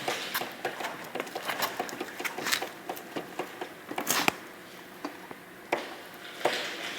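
Irregular clicking and knocking from a GV250 Aquila motorcycle's front sprocket and drive chain as the bike is pushed slowly, with a few louder knocks. The noise comes from dry, unlubricated chain links that have stiffened and bind at the sprocket.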